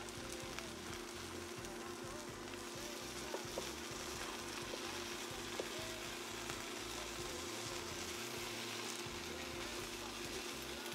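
Egg-soaked okara steamed-bread French toast sizzling steadily as it fries in a non-stick pan. A few light taps of chopsticks and a spatula against the pan come in the middle.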